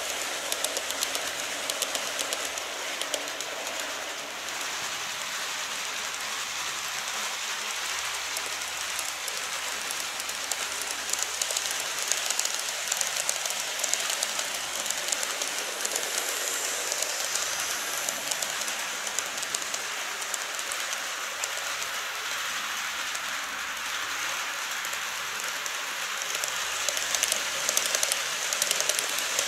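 N-gauge model trains of the JR 205 series and 189 series running past on sectional track: a steady fine rattle and clicking of the small wheels over the rails and joints. It gets somewhat louder near the end.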